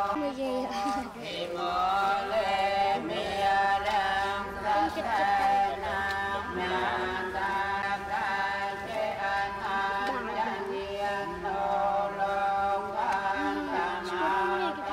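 Buddhist prayer chanting: voices reciting together in a sustained chant, with long held notes that rise and fall in pitch.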